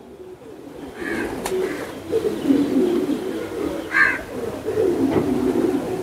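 Racing homer pigeons cooing: a low, wavering run of coos that starts about a second in and carries on through the rest.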